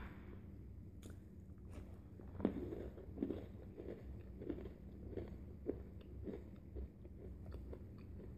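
A person chewing a crunchy dark-chocolate-coated pretzel bite: a run of faint, regular crunches about every two-thirds of a second.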